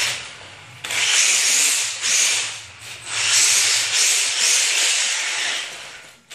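Brushless-powered Tamiya Hotshot RC buggy sliding in circles on a smooth garage floor: its tyres scrub and its drivetrain runs in surges as the throttle is opened and closed, the longest surge in the second half.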